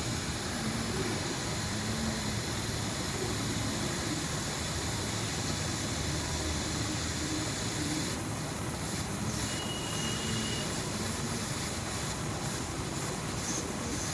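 Split air conditioner outdoor unit making a steady, even hissing rush with no change in loudness; the unit's condenser coil has a refrigerant leak.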